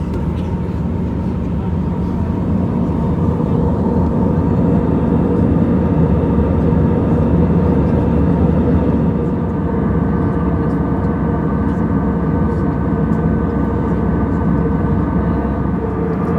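Steady roar of an Airbus A320's engines and rushing air, heard inside the passenger cabin, with a few steady whining tones over it; a higher tone joins about ten seconds in.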